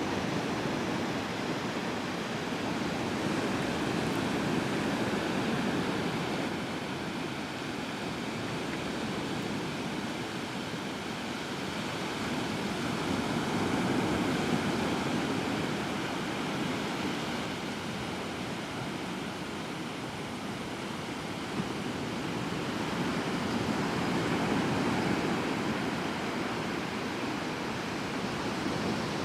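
Atlantic Ocean surf washing on the shore: a continuous rushing noise that rises and falls in slow swells roughly every ten seconds.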